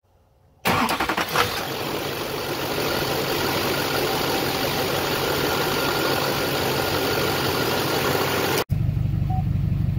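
Duramax V8 turbodiesel cranking and firing about half a second in, then idling loudly with the hood open. Near the end the sound cuts abruptly to a lower, steadier idle hum heard from inside the cab.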